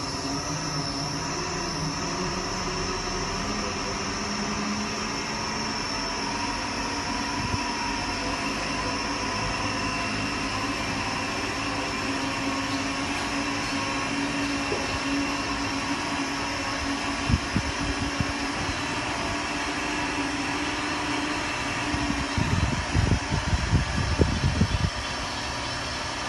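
Steady hum with a high whine from a tower crane's machinery, heard inside the operator's cab while the crane slews. A couple of knocks come about two-thirds of the way through, and a cluster of knocks and rattles near the end.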